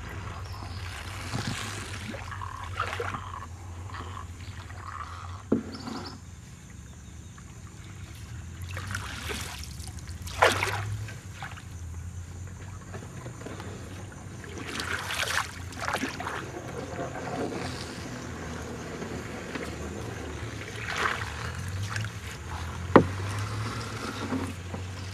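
Sound-design soundscape of the sea: a steady low rumble with water-like swishes and splashes coming and going, and a few sharp clicks.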